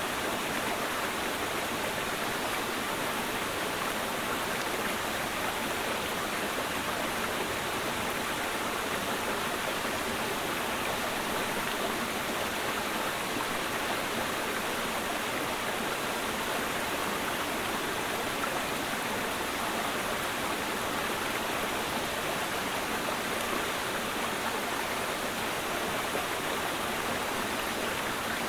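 Clear mountain stream flowing, a steady, even rush of water with no pauses.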